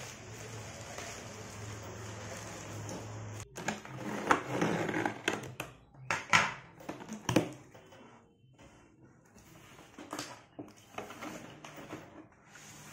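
Plastic courier bag and wrap rustling and crinkling as they are pulled off a laptop box, then a cardboard box being handled, with rustles, scrapes and several sharp knocks.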